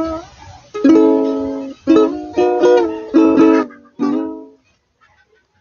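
Ukulele strummed in a handful of separate chords, each ringing and fading; the playing stops about four and a half seconds in.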